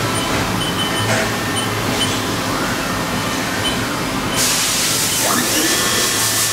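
Spindle of a Haas VF-3 vertical machining center spinning up with no cut being made, a steady mechanical whir with a thin high whine. About four seconds in, a loud hiss joins it along with a faint rising tone.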